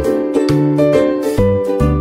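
Cheerful intro music with a bouncy bass note about twice a second under a pitched melody.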